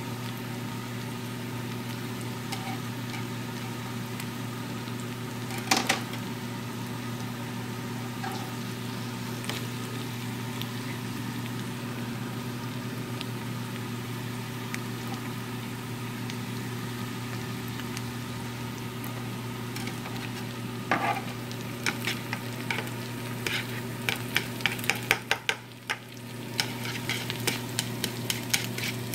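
Onion, egg and chicken sizzling steadily in a nonstick frying pan over a steady low hum. Chopsticks clack against the pan once about six seconds in and again about twenty-one seconds in, then tap quickly over and over in the last seven seconds as the food is stirred.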